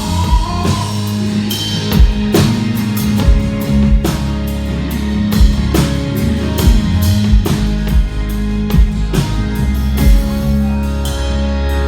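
A live rock band playing an instrumental passage: a drum kit keeping a steady beat over bass and sustained chords.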